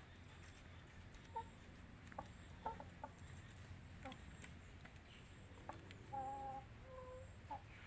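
Chickens clucking faintly: a scatter of short clucks, then a longer drawn-out call about six seconds in.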